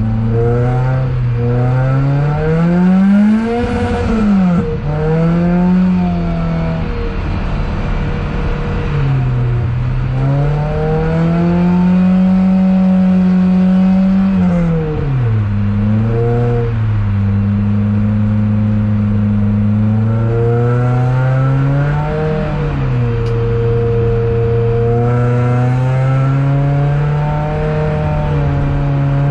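Toyota Altezza's engine heard from inside the cabin, revving up and down as the car is driven hard around a snowy track. The pitch climbs and drops several times, with sharp dips between climbs and a few stretches held at steady revs.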